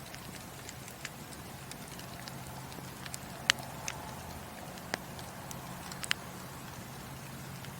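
Burning wood in a fireplace crackling, with scattered sharp pops over a steady low rush of the fire. The loudest pop comes about halfway through.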